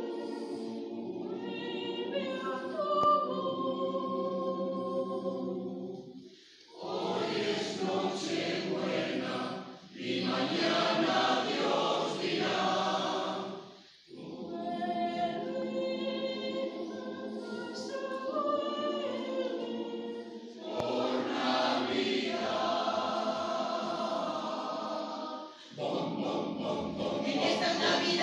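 Mixed choir of men's and women's voices singing in harmony, in long held phrases broken by short pauses for breath, three times.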